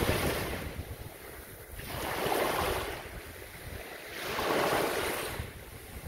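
Small waves breaking and washing up a sandy beach: three surges of foamy hiss, about two seconds apart, each swelling and fading away.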